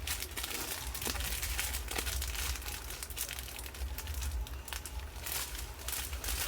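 Small plastic bags of diamond-painting drills crinkling as they are handled and turned over, a busy run of irregular crackles and clicks over a low steady hum.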